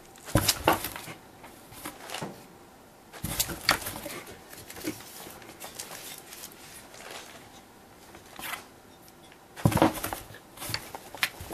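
A cat inside a cardboard box paws and scrabbles at the cardboard around a torn hole, making short bursts of scratching and rustling. The loudest burst comes near the end, as the paw pushes out through the hole.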